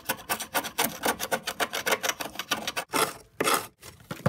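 A scraper scraping caked, dried grass clippings and rust off the underside of a steel lawn mower deck in quick repeated strokes, several a second.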